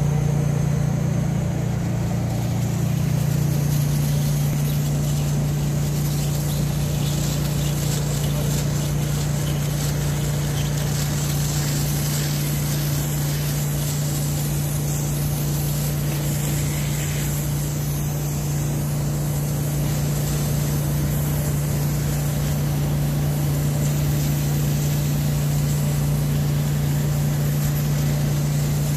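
Gumbusters commercial steam cleaner running, a steady low hum from the machine under the hiss of steam jetting from the wand's triangular brush.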